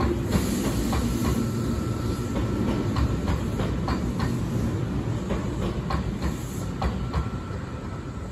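Kintetsu limited express electric train running past, with a steady rumble and its wheels clacking over rail joints.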